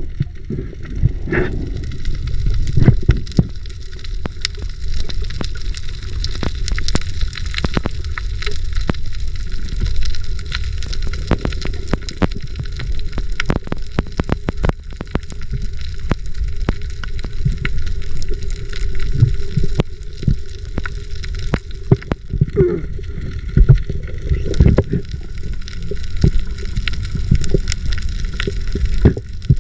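Water noise picked up by a diver's camera in the sea: a steady low rumble with many scattered sharp clicks and crackles.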